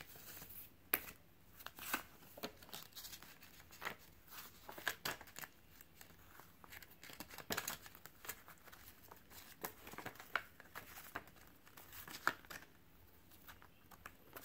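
Paper pages of a CD booklet being handled and turned by hand: faint rustling and flipping in short, irregular strokes.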